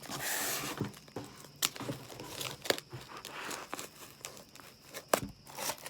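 Packaging being handled and unwrapped: paper and plastic crinkling and rustling, with a few sharp crackles and some tearing.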